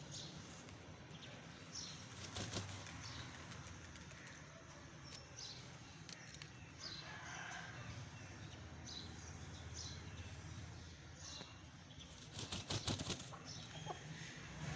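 A chicken's wings flapping in a quick run of beats about twelve seconds in, over faint short high chirps of small birds repeating throughout.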